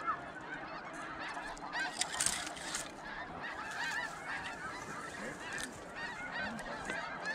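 A large flock of snow geese calling: a dense, unbroken chorus of many overlapping high, short honks. A couple of brief rustling noises come through about two seconds in.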